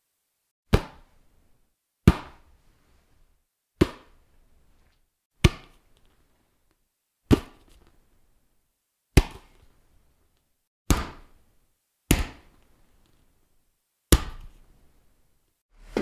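A hand slapping a volleyball, nine sharp single hits spaced about one and a half to two seconds apart, each dying away quickly.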